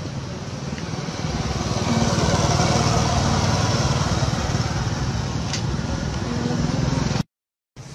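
An engine running, with a steady low pulsing, swelling louder about two seconds in and then slowly easing; the sound drops out abruptly near the end.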